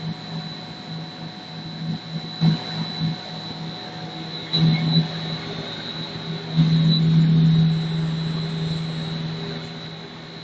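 Snack pellet extruder running with a steady motor hum and a constant high whine. Several louder irregular swells come through, the biggest lasting about a second and a half around two-thirds of the way in.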